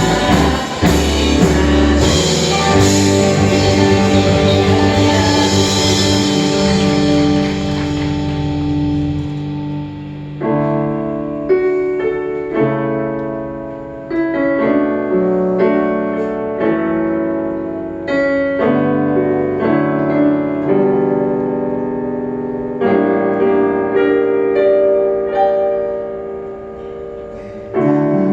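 Worship band playing instrumentally: for about the first ten seconds a full band with cymbals and bass, then a keyboard alone playing slow, held chords that ring and fade.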